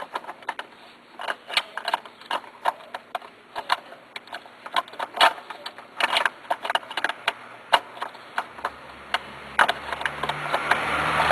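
Irregular metal clicks, taps and knocks, several a second, as a broken piece of a car's chassis is fitted back into place by hand. About three-quarters of the way through a low steady hum starts, and a broad noise swells near the end.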